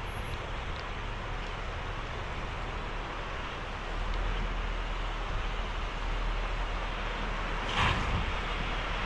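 Wind on the microphone over the low rumble of a 2005 Honda Pilot's V6 crawling slowly off-road; the sound grows a little louder about four seconds in. A brief sharp scrape-like noise comes near the end.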